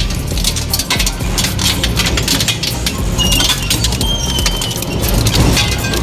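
A crushing machine breaking material: a dense run of cracking and splintering over a steady low rumble, with two short high-pitched squeals around the middle.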